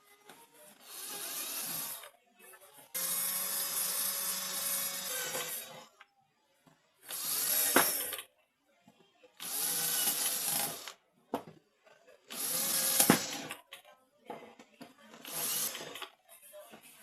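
Cordless screwdriver driving screws in six short runs of one to three seconds each, with pauses between.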